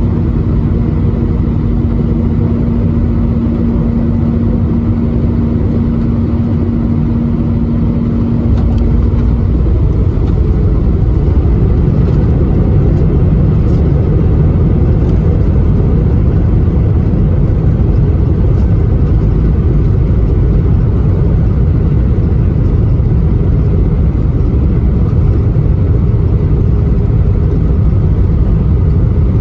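Airbus A319 cabin noise on landing. A steady jet engine and airflow rumble carries a steady hum, then about eight seconds in the wheels touch down. The rumble steps up louder and rougher as the airliner rolls out along the runway.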